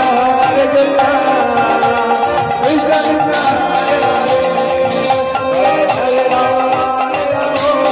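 Devotional harinam sankirtan music: voices singing with hand cymbals and drum keeping a steady beat.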